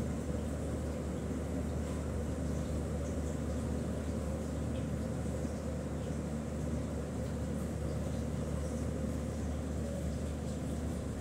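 Steady low background hum with an even rumble, unchanging throughout, with faint scratches of a pen writing on paper over it.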